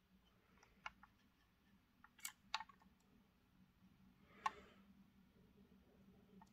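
Near silence broken by a few faint clicks and light taps of a plastic model locomotive being handled and turned over in the hand, the loudest about two and a half seconds in and again with a short rustle about four and a half seconds in.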